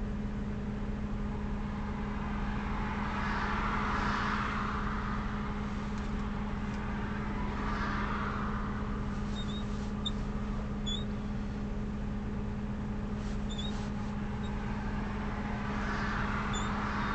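Vehicle engine idling steadily, heard from inside the cabin, with a constant low hum. Other vehicles pass by, swelling and fading three times: about three seconds in, about eight seconds in, and again near the end.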